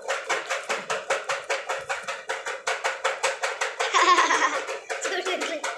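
Electronic toy playing a fast, even clicking beat, about seven clicks a second, over a steady tone, with a brighter burst of sound about four seconds in.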